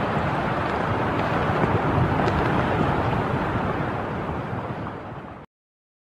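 Steady rushing wind noise that fades out about five seconds in and cuts to silence.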